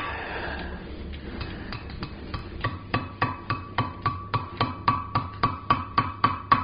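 Hand hammer striking a hot square steel bar over the horn of an anvil, bending it into a hook. The blows begin about a second in and settle into a steady rhythm of about three a second, each with a ringing note.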